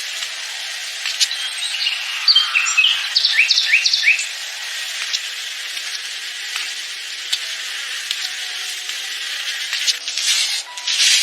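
Steady high insect-like hiss with a run of short bird-like chirps about two to four seconds in and scattered clicks; louder rubbing or scraping strokes begin near the end.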